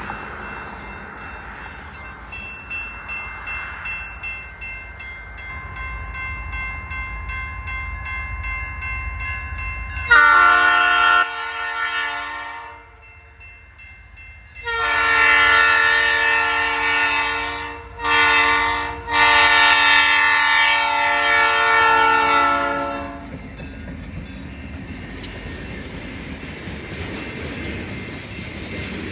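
A railroad crossing bell rings steadily as the train nears. The lead EMD SD40-2 locomotive then blows its multi-chime air horn in the grade-crossing pattern: long, long, short, long. The locomotives' diesel engines and wheels then rumble past the crossing.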